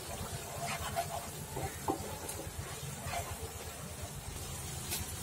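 Wooden spatula stirring and scraping a thick spice masala paste frying in oil in a nonstick pan, with a low sizzle and a few short scrapes.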